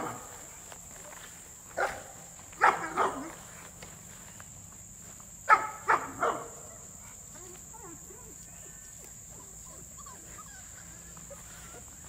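Cane Corso puppies barking as they play: a handful of short, sharp barks bunched about two, three and six seconds in, with quieter yips after.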